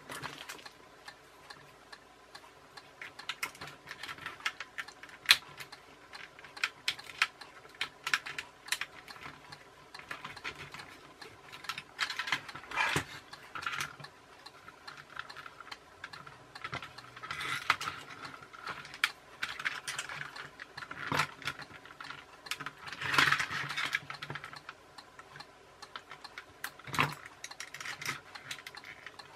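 Irregular clicks, taps and clatter of hard plastic as a toy RC car's clip-together plastic gearbox housing is handled and pried apart with small tools.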